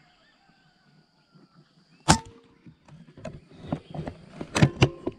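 A single rifle shot, one sharp crack about two seconds in, followed by several lighter clicks and knocks.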